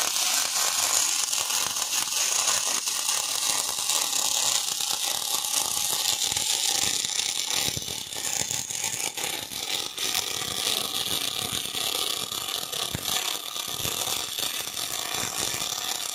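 MIG welding arc from a Blue Arc 350 welder crackling steadily as a bead is run along a steel angle.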